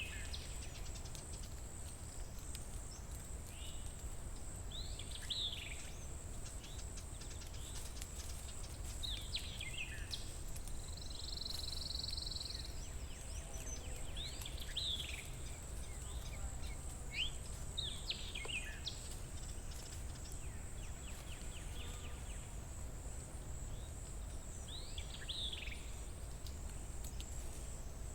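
Birds chirping outdoors: short sweeping calls that come every few seconds, over a steady high-pitched hum and a low background rumble.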